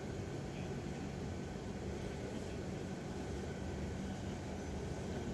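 Steady low hum of an idling vehicle engine with street background noise.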